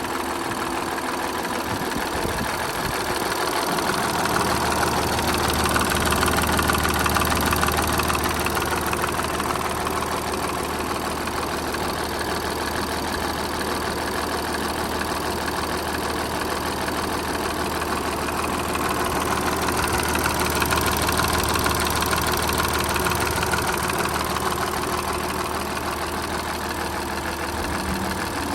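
Audi A7 engine idling, heard at the left side of the engine, with a noise that the owner suspects may be the timing chain. A low steady hum sets in about three seconds in, and the sound swells louder twice.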